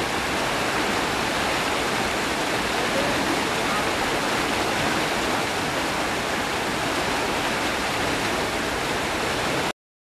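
Steady, even rushing noise with no separate events in it, cut off abruptly just before the end.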